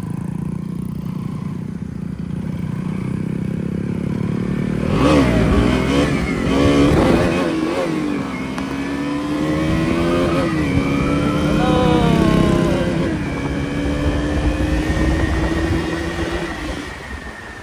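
Motorcycle engine running at low revs, then accelerating from about five seconds in, its pitch climbing and dropping several times as it shifts up through the gears.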